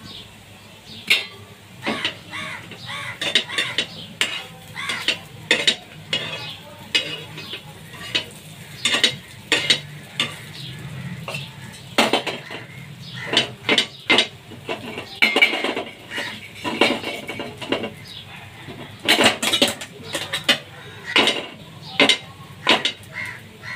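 Metal spatula scraping and clinking against a frying pan as fried raw-banana slices are stirred and turned, in quick, irregular strokes throughout.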